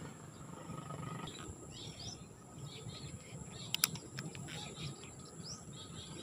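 Birds chirping in short calls, with two sharp clicks in quick succession about four seconds in.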